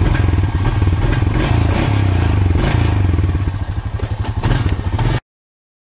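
ATV (four-wheeler) engine running close up as the machine rides off, with an even low pulsing beat. The sound cuts off suddenly about five seconds in.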